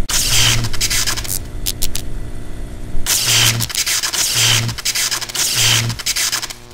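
Intro sound effect track: a steady low buzzing hum overlaid with loud bursts of harsh hissing noise, one long burst at the start and three evenly spaced shorter ones about a second apart in the second half, each with a short low tone.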